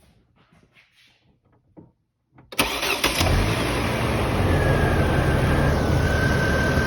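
A few faint clicks, then about two and a half seconds in the 2006 Hummer's engine cranks briefly, catches and settles into a steady idle, with a thin steady whine above it. It runs smoothly after a broken wire behind its P1516 throttle-actuator code was soldered and heat-shrunk.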